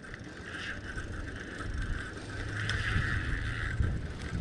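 A bicycle rolling over concrete pavement, with steady riding noise and a few light mechanical clicks from the drivetrain.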